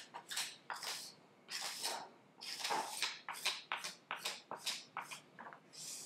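Steel card scraper drawn across an oak board in a dozen or so short scraping strokes, coming quicker through the middle.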